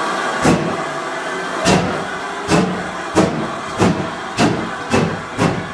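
GWR 4200 class 2-8-0 tank engine No. 4247 pulling away: its exhaust chuffs come slowly at first, then quicken to about two a second.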